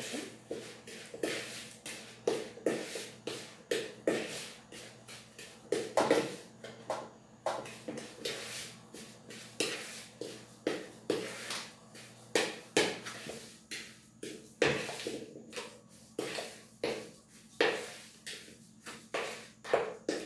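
A hand utensil stirring and beating sugar and egg yolks in a mixing bowl, knocking and scraping against the bowl's side in a steady rhythm of about one and a half strokes a second.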